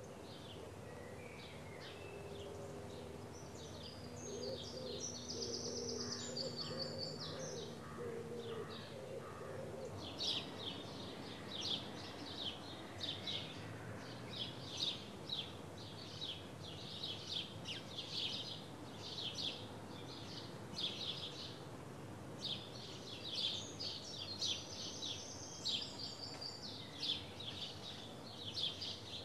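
Countryside birdsong over a soft steady background hiss. Short high chirps repeat about once or twice a second from about ten seconds in, after lower, steadier calls in the first part.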